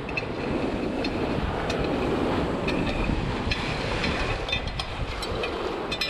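Wind buffeting the microphone and sea water rushing past the bow of a sailboat under way in rough weather, steady throughout. A few faint clicks from the shackle and furler hardware being handled.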